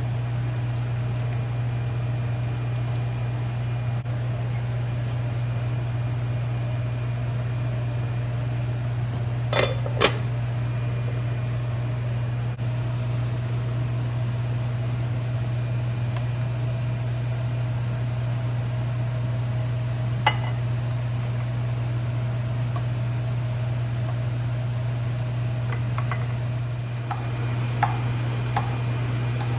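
Steady low hum of a running kitchen appliance, with a few sharp clinks about ten seconds in, once about twenty seconds in, and a few more near the end.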